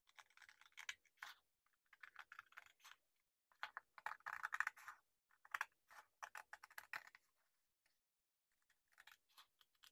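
Scissors cutting through a sheet of paper, faint snips coming in short runs with brief pauses between them.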